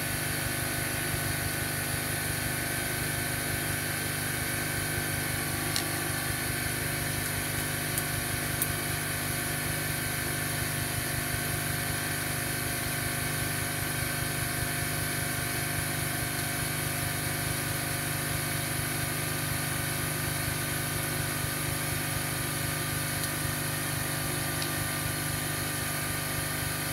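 Air compressor motor running with a steady, unbroken drone.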